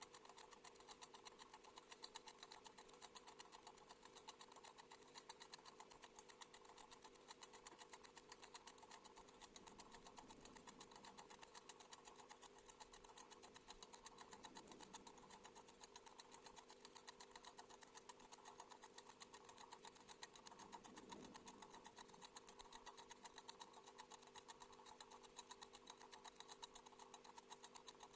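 Cat wind-up timer's clockwork ticking, sped up so the ticks run together into a fast, faint, even rattle.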